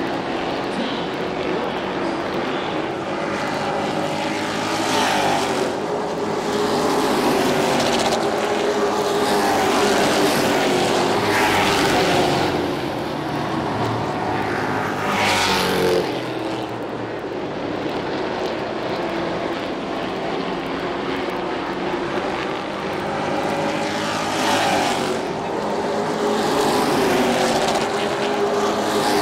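Pro Truck race trucks' engines at racing speed around a short oval, the pack's engine note swelling and falling in pitch several times as trucks pass the stands and fade down the straight.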